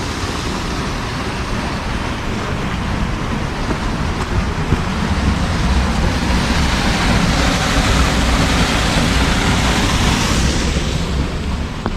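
Steady rush of water with wind rumbling low on the microphone; the hiss of the water swells around the middle and eases near the end.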